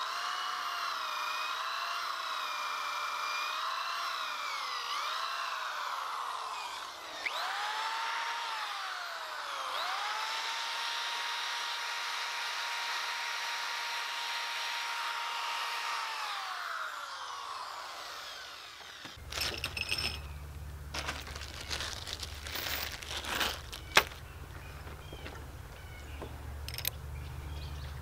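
Electric drill boring a pilot hole for a lag bolt into a log floor joist. The motor's whine wavers under load, drops and spins back up about a third of the way in, holds a steady pitch, then winds down. After that a low steady hum with scattered clicks and knocks, one of them loud.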